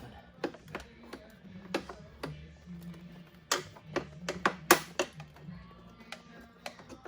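Irregular clicks and knocks of a plastic motorcycle side cover and hand tools being handled as the cover is worked loose from its hooks, with a cluster of sharper knocks in the middle.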